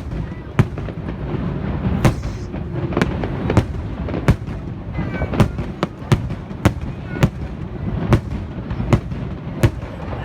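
Aerial fireworks display: sharp bangs going off about every half second to second, one after another, over a continuous low rumble of shells bursting.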